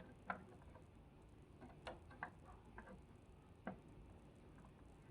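Faint, scattered clicks and taps, about half a dozen over a few seconds, from a caster wheel and its screws being handled during installation.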